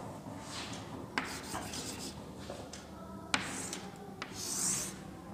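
Chalk rubbing and scraping on a blackboard as lines are drawn, in several short strokes with a few sharp taps of the chalk against the board, the longest stroke about four and a half seconds in.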